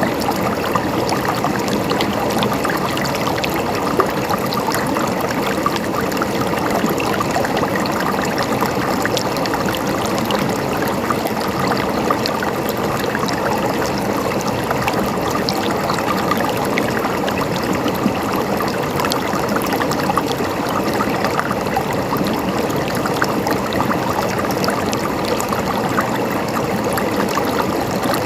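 River water flowing and splashing over rocks, a steady rushing with many small splashes and trickles.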